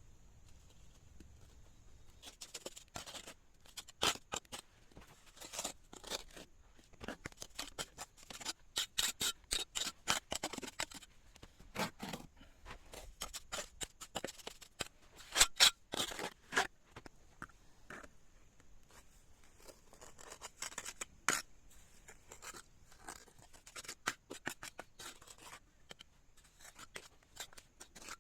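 A dense, irregular run of sharp clicks and scrapes starting about two seconds in, loudest around the middle and thinning out near the end.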